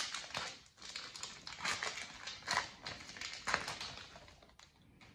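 A foil Pokémon Team Up booster pack wrapper being torn open and crinkled, with the cards slid out and handled. Irregular crinkling and rustling that dies away near the end.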